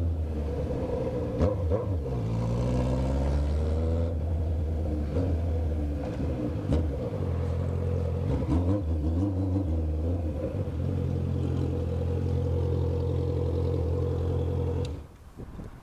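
Honda CBR650F inline-four running on a straight pipe with no muffler, idling with a low, steady exhaust note and a couple of brief changes in pitch, then cutting out near the end.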